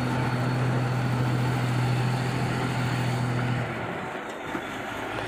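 Crawler bulldozer's diesel engine running at a steady idle, a low drone that drops away about three and a half seconds in.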